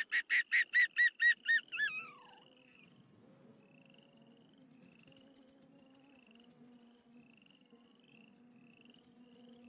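Arctic fox giving a quick run of about nine high, yapping barks, the last one sliding down in pitch, all over within about two seconds. After that only faint short rising chirps repeat about every half second over a low steady hum.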